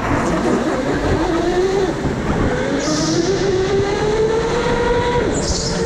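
Go-kart motors whining around the track, their pitch rising and falling as the karts speed up and slow, with two short hissy bursts, one about halfway through and one near the end.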